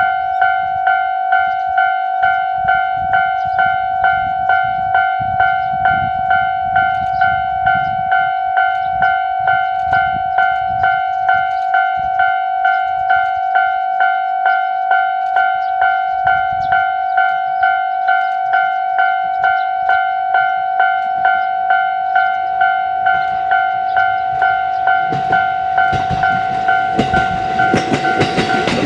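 Japanese level crossing warning bell ringing steadily, about two strokes a second. Near the end the rumble of an approaching KiHa 40 diesel railcar rises under it.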